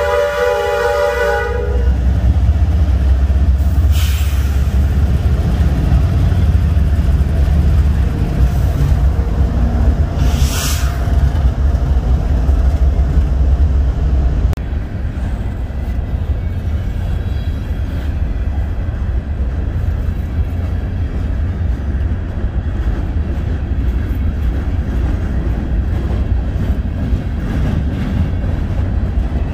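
Kansas City Southern diesel freight locomotive horn sounding a chord that cuts off about two seconds in. Then the locomotives pass with a deep, loud rumble, with two brief sharp noises along the way. From about halfway the empty covered grain hoppers roll by more quietly, their wheels clicking over the rail joints.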